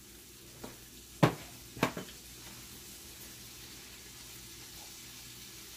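Shrimp sautéing in a frying pan with a faint, steady sizzle. Three sharp knocks come in the first two seconds.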